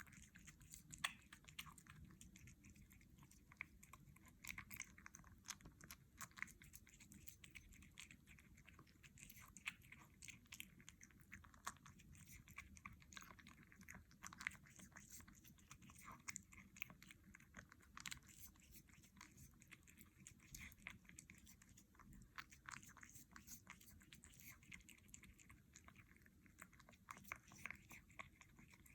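Kitten eating wet food: faint, quick wet chewing and smacking clicks, several a second, without pause.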